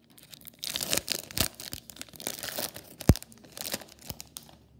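Baseball card pack wrapper being torn open and crinkled by hand, in ragged crackling spurts, with a single sharp click about three seconds in.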